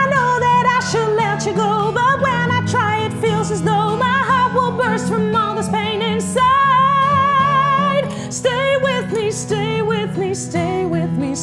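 Live song performance: a female voice sings long, held melodic notes with vibrato over acoustic guitar chords.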